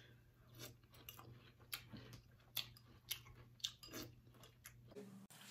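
Faint, irregular crunching of Cap'n Crunch cereal being chewed with the mouth closed, a dozen or so short crisp crunches.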